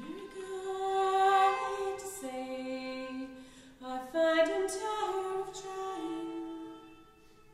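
A woman singing a slow melody in long held notes over her own bowed violin. The line steps down about two seconds in, climbs again with a wavering bend about four seconds in, and the notes fade out near the end.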